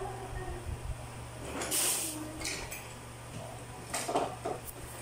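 Small objects handled close to the microphone: brief clinks and knocks about two seconds in and a cluster around four seconds, over a steady low hum.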